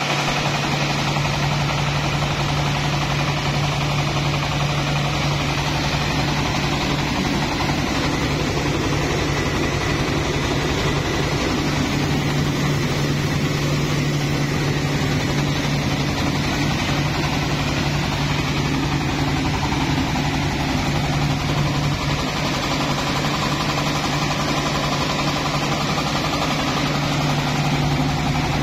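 Mobile rice mill running steadily under load: the engine drives a Yanmar HW60 husker and a Daichi N70 polisher while paddy passes through, giving an even machine hum with a strong low drone.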